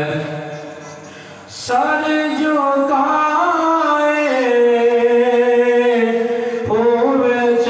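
A man's unaccompanied voice chanting devotional Urdu poetry in long, ornamented held notes. A held note fades out over the first second and a half. A new phrase then starts strongly, and another begins with a rise near the end.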